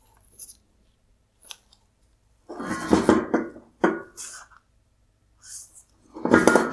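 Metal headlight projector assembly (bracket, chrome reflector and lens) being handled and turned over on a wooden workbench: a series of short knocks and scrapes, loudest about three seconds in and near the end.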